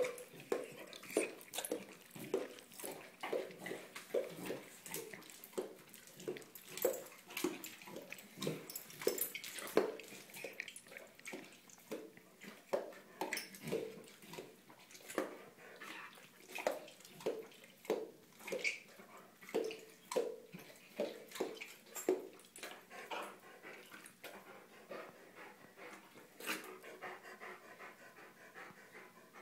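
A dog gulping, swallowing and licking its lips over and over, wet smacking clicks about two a second that thin out near the end. This is a compulsive gulping-and-licking episode, which specialists suspect may come from mini-seizures.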